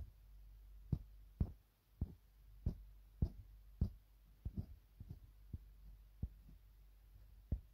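Soft dull taps and knocks, about two a second at uneven intervals, from a finger working a phone's touchscreen while scrolling along an editing timeline.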